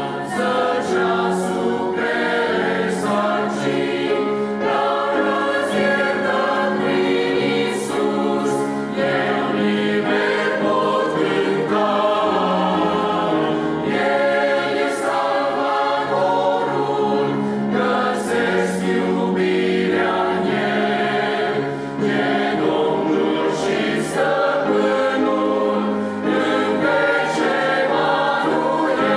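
Mixed choir of men and women singing a Romanian hymn in parts, held at a steady, full level.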